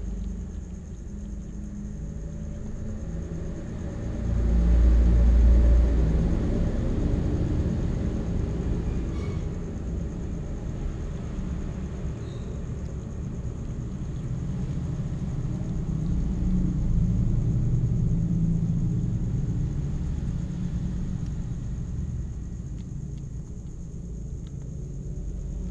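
A steady low rumble that swells loudest about four to six seconds in and again in the second half.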